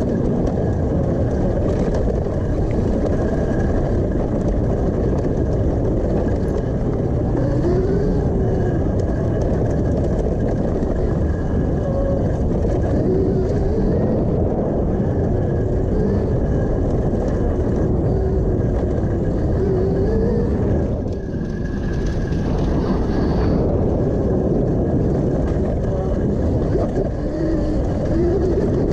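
Electric-converted Honda CRF150R dirt bike ridden along a rough dirt trail: a steady rush of wind and trail noise with the bike rattling over the ground. Under it is a faint whine that rises and falls, plus a thin steady tone.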